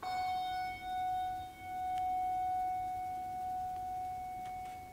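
A bell is struck once, and its clear, steady tone rings on and slowly dies away with a gentle pulsing waver. It is rung to mark a name just read in remembrance.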